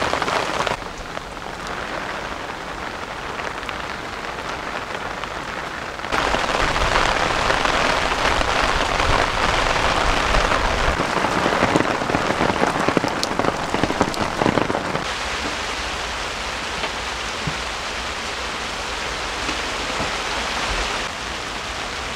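Heavy rain pouring steadily in a downpour, patter and drips on wet surfaces, louder for several seconds in the middle.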